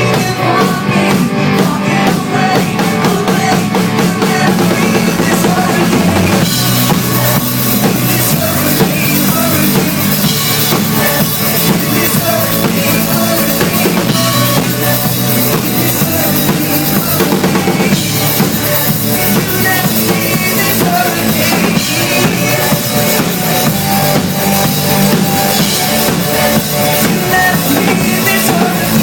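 Pop-rock band playing live, with the drum kit driving the beat; the sound gets fuller and brighter about six seconds in.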